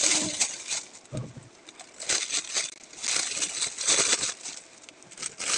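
Thin clear plastic bag crinkling and rustling as hands grip and handle it, in irregular bursts.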